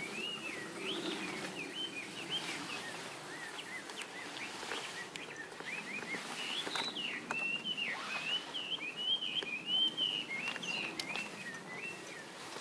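A songbird singing a near-continuous run of quick, varied warbling phrases, with a few faint clicks.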